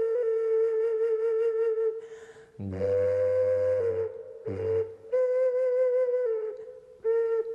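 A Kazakh folk wind instrument with a flute-like tone, played in long held notes that stay close to one pitch with a slight waver. The phrases are broken by short breaths. A low buzzing undertone sounds under some of the phrases.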